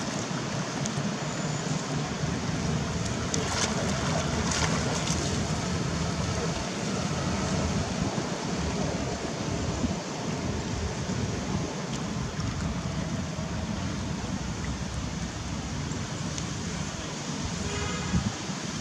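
Water splashing and churning as a group of macaques swims and wrestles in a shallow muddy pond, a steady rushing noise with a few sharper splashes, and a short call near the end.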